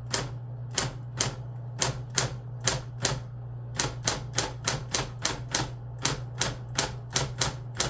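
Manual typewriter keys striking one by one in an uneven rhythm of about three to four clacks a second, as the alphabet is typed out in capitals, with a short pause a little after three seconds in. A steady low hum runs underneath.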